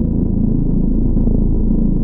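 Electronic synthesizer music: a deep, steady drone with low notes shifting underneath.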